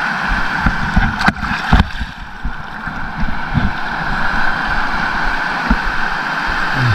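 Wind buffeting a body-worn action camera's microphone over the wash of shallow surf, with two sharp knocks about a second in.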